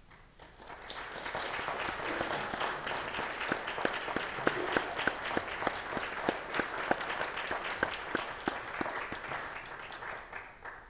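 Audience applauding. The clapping builds up over the first couple of seconds, stays steady with single sharp claps standing out, and dies away near the end.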